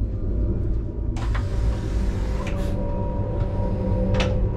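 Interior running noise of an ICE 3 high-speed train at speed: a steady low rumble with a few steady hum tones. About a second in a rush of airy hiss comes in and fades, with a few light knocks along the way.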